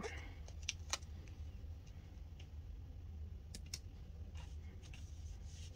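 Faint, scattered clicks and light ticks of paper sticker sheets and planner pages being handled on a tabletop, over a low steady hum.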